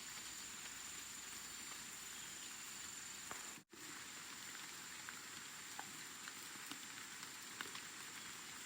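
Steady rain falling, an even hiss with scattered drop ticks. The sound cuts out for an instant a little over a third of the way in.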